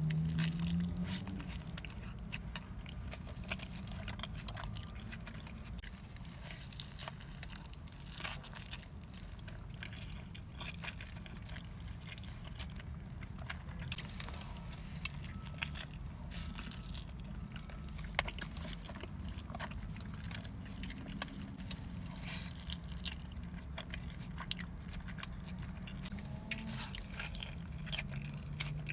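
A person chewing and biting Chipotle food close to the microphone, with irregular wet clicks and crunches, over a steady low hum.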